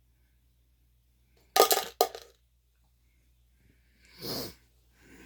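Two sharp clattering knocks with a short rattle, about a second and a half and two seconds in, from the plastic laptop case being pressed and clipped back together. Near the end comes one heavy breath out.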